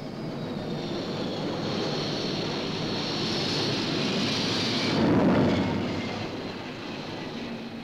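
A steady noisy roar that builds to a peak about five seconds in and then fades.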